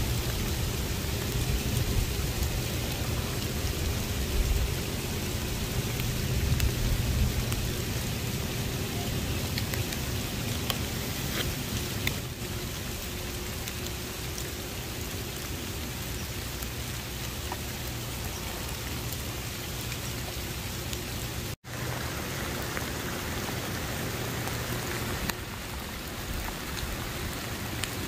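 Steady rain falling, an even hiss with scattered faint drop ticks. A low rumble sits under it through the first several seconds, and the sound breaks off for an instant about three-quarters of the way through.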